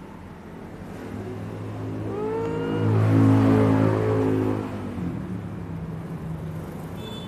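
A passing motor vehicle's engine. A low hum swells from about a second in and rises in pitch as it accelerates. It is loudest around the middle, then fades.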